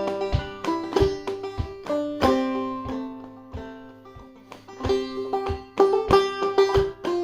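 Clawhammer banjo in double C tuning playing a slow melody solo, with plucked notes ringing on. The picking thins out and the notes die away for a moment near the middle, then picks up again.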